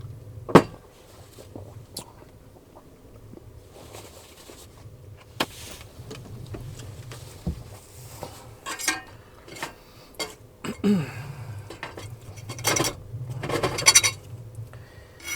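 Fork and plate clinking and scraping during a meal: a sharp clink about half a second in, then scattered light clicks and several short scrapes in the second half.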